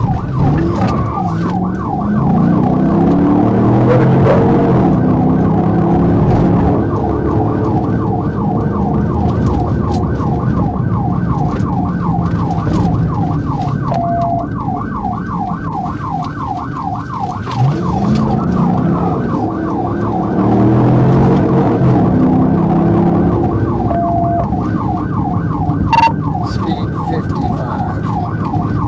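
Police car siren sounding with a fast, repeating up-and-down warble, over the patrol car's engine revving hard as it accelerates, rising in pitch in steps through the gears twice. A sharp click sounds near the end.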